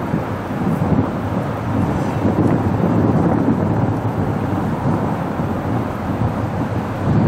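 MBTA diesel commuter train rumbling as it pulls away, with wind buffeting the microphone.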